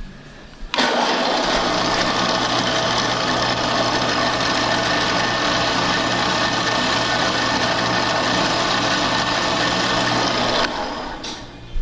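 A drill press switches on and runs steadily for about ten seconds while its bit shaves the end of a rotary engine side seal, taking off about two thousandths of an inch because the seal is too tight in its rotor slot. It then switches off and briefly spins down.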